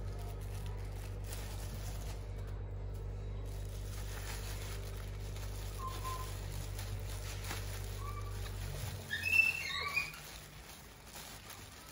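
Short high chirps and squeaks: a few faint ones, then a quick cluster of louder ones about nine seconds in. A low steady hum runs underneath and cuts out just before the cluster.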